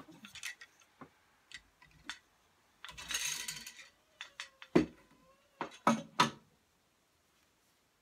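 Wooden clicks and knocks from a rigid heddle loom being worked, with a short rustle about three seconds in and the loudest sharp knocks a little after it.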